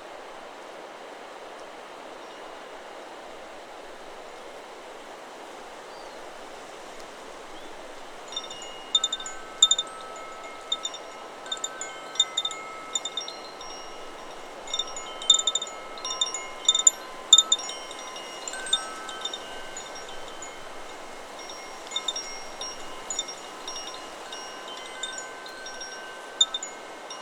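Chakra Chimes 'Solar Plexus' wind chime struck by the wind over a steady hiss of wind through trees. The first strikes come about eight seconds in, then irregular clusters of strikes whose clear tones ring on for several seconds.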